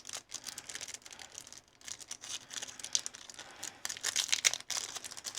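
Foil Pokémon booster-pack wrapper crinkling in short, irregular rustles as it is handled and torn open.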